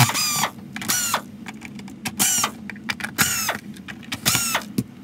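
Cordless drill/driver running slowly while backing screws out of the plastic housing of a Shark NV500 vacuum's cleaner head. A high squeak comes about once a second as the screw turns in the plastic. The motor hum stops at the very end.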